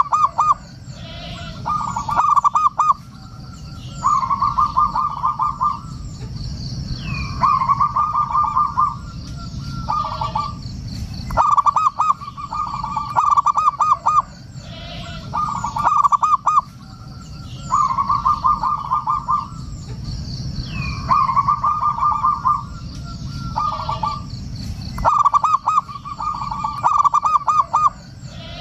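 Zebra dove (perkutut) cooing in a run of about a dozen rapid stuttering phrases, each a second or two long with short pauses between, over a steady low rumble. Faint high chirps from small birds come in between the phrases.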